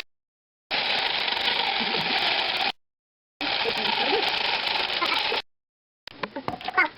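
Jigsaw cutting through a pumpkin, a steady harsh noise in stretches of about two seconds that cut off abruptly into silence; near the end, irregular knocks and rattles.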